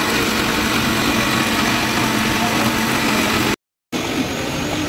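Electric mixer grinder running steadily, its motor humming as it grinds a wet paste in a steel jar. The sound cuts off abruptly about three and a half seconds in, and a different steady background noise follows.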